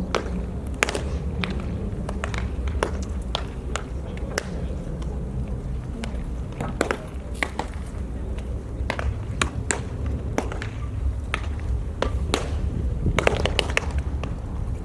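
Baseballs smacking into leather gloves again and again, sharp irregular pops several a second from a row of pitchers playing catch, over a steady low rumble.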